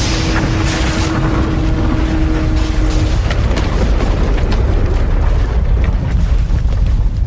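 The low rumble of an explosion dying into a large fire burning, with scattered crackles and pops. A steady low tone holds through about the first three seconds.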